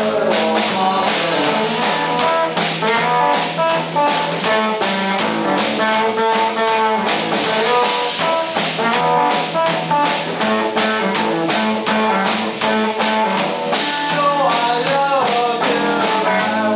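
Live band playing with guitar and a steady drum beat.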